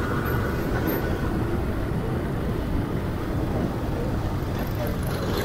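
Steady low rumble of a motorcycle on the move, its engine and the rush of wind heard from the bike itself.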